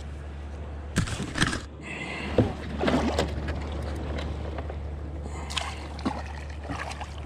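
Water splashing and sloshing at the side of a kayak as a hooked chicken grunt is brought to the surface and scooped into a landing net, with a few knocks about a second in. A steady low hum runs underneath.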